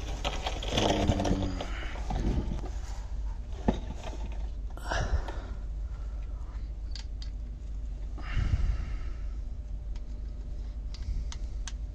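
Scattered light clicks and short scrapes of metal being handled: a nut being fitted by hand onto a starter motor's mounting stud. A steady low hum runs underneath.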